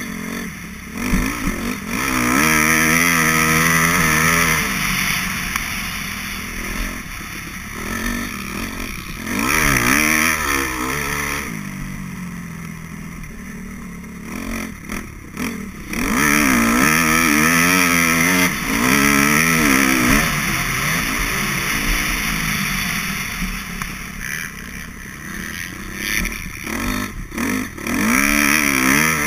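Dirt bike engine ridden hard round a motocross track, heard on board: it revs up through the gears, drops off the throttle into the corners and pulls away again several times.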